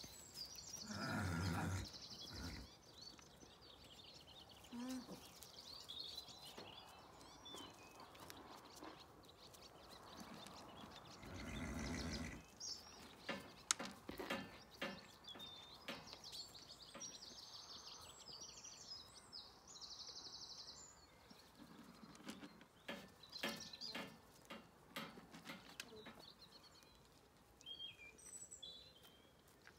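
Quiet outdoor ambience: small birds chirping and twittering on and off, with scattered light clicks and two brief muffled rushes, about a second in and again around the middle.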